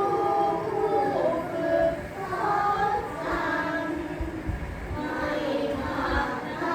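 A group of young children reciting a Thai poem aloud in unison, in a sing-song chanting melody, with the syllables drawn out in the rhythm of the verse.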